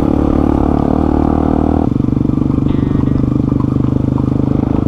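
Single-cylinder dirt bike engine running steadily on the road. About two seconds in the throttle eases off and the engine note turns lighter and pulsing.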